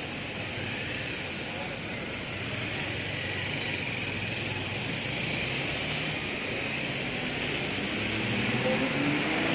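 City street traffic: cars idling and passing while an electric tram approaches, the noise growing louder toward the end, where a rising hum comes in.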